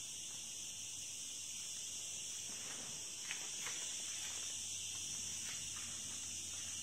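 Steady high-pitched hiss, with a few faint clicks around the middle.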